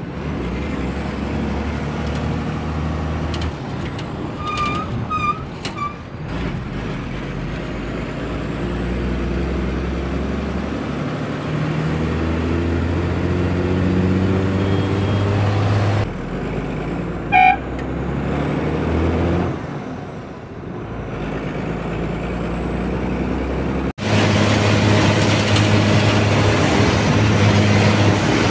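Bus engine heard from inside the cabin while driving, its pitch rising and falling as it pulls. A horn toots three times in quick succession about five seconds in and once more a little past the middle.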